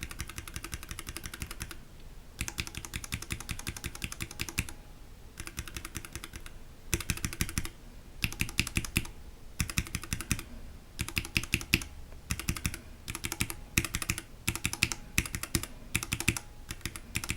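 Stock linear mechanical keyboard switches, Gateron Linjar and retooled Cherry MX Black, pressed in short bursts of rapid keystrokes with brief pauses between them. The presses carry the spring ping that both switches are known for.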